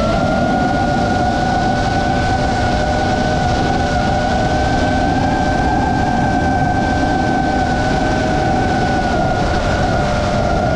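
GEPRC Mark5 five-inch FPV quadcopter's motors and propellers whining steadily in cruising flight, the pitch drifting up and down a little with the throttle, over a steady rush of wind noise.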